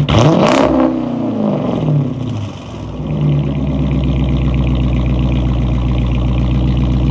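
Dodge Challenger R/T's V8 engine, freshly cold-started, revved once so the pitch jumps and glides back down over about two seconds, then settles into a steady deep idle.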